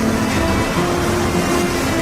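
Background music with long held notes over a steady, dense rushing noise.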